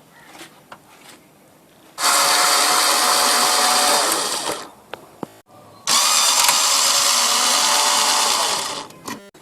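A small handheld electric motor tool runs in two bursts of about two and a half and three seconds, each with a steady hiss and a faint motor tone, then winds down at its end.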